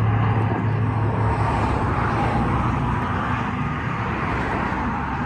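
Passing road traffic: a steady rushing noise, with a low engine hum that fades about a second in.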